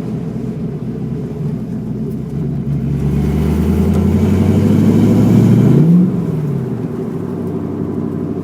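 1987 Mustang GT's 5.0-litre V8 accelerating under throttle, its engine note rising steadily in pitch and loudness for about three seconds, then dropping off suddenly about six seconds in as the throttle is released, settling back to a steady cruise.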